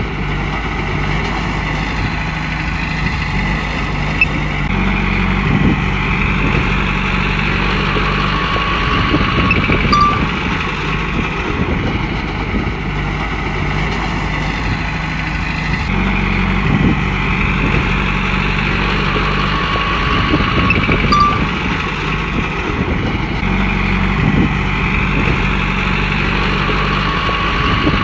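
Komatsu bulldozer's diesel engine running under load, its note shifting in a repeating cycle every nine to eleven seconds as the machine works. A high whine builds up three times, roughly every ten seconds.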